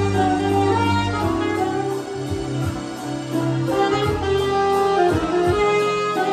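Saxophone playing a slow melody in long held notes, over an accompaniment with a low bass line.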